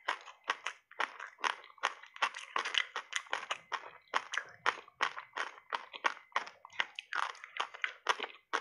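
Crunchy passionfruit reshaped ice coated in matcha powder being chewed with the mouth closed: a steady, rapid run of sharp crunches, about three to four a second.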